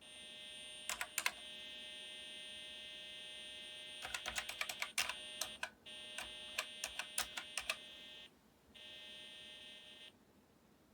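Acorn BBC Micro Model B's built-in speaker sounding a steady buzzing tone that cuts out and comes back twice, mixed with clusters of sharp clicks. It is the weird noise of a machine that powers up after its power supply repair but does not boot properly.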